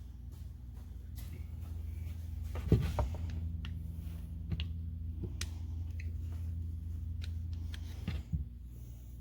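Scattered clicks and knocks of hand tools and small metal parts being handled on a workbench during a tool teardown, with a louder knock about three seconds in and two more near the end. A steady low hum runs underneath.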